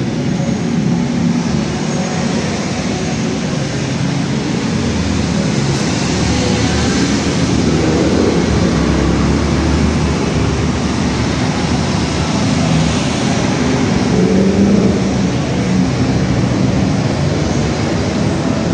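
Steady, loud mechanical rumble with a hiss over it, with no clear rhythm and no sudden events.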